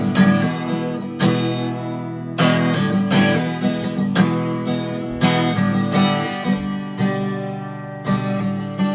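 Acoustic guitar strumming chords, a rhythmic instrumental introduction with sharp strokes about once a second.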